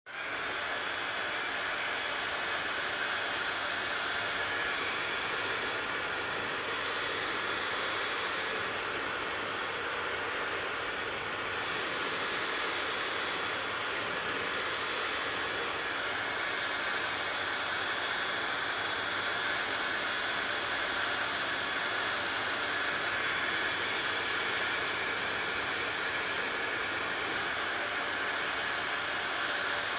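Hair dryer running steadily: a constant blowing hiss with a faint high whine, its tone shifting slightly every few seconds.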